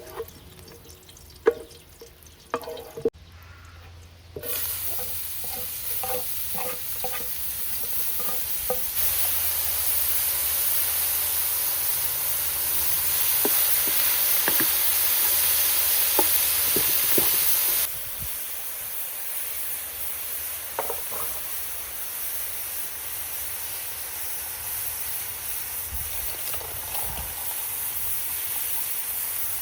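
Food frying in hot oil in a pan for a stew, sizzling, with light clinks of a metal utensil stirring against the pan. The sizzle starts suddenly about four seconds in, drops abruptly a little past the middle, and carries on more quietly.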